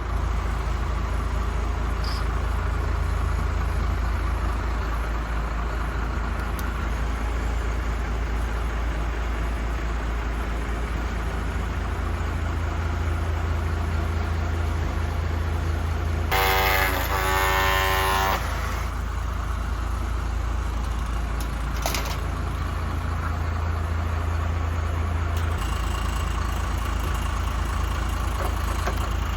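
A steady low engine-like rumble, with a horn-like tone lasting about two seconds a little past halfway and a short click a few seconds later.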